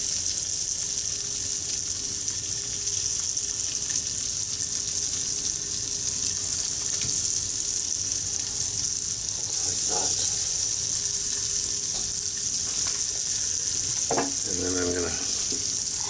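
Egg frying in oil in a nonstick frying pan: a steady, high sizzle.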